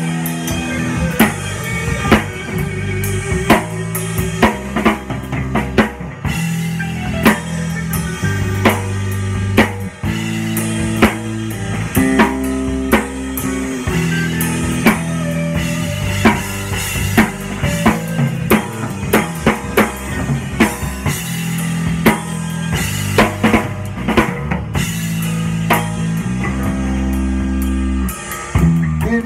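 A drum kit and a guitar playing together in an instrumental passage: a steady drumbeat with bass drum, rimshots and cymbal hits over sustained guitar notes.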